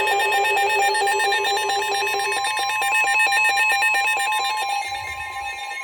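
Weather alert radio sounding its electronic alarm for a severe thunderstorm warning: a loud, rapidly warbling beep over a steady tone near 1 kHz, growing somewhat quieter near the end.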